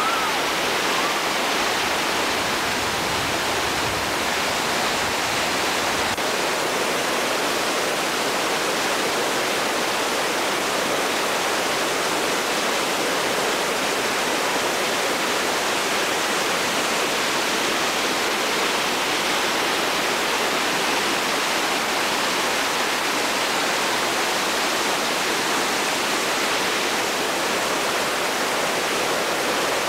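Whitewater river rapids rushing steadily, a constant even wash of churning water.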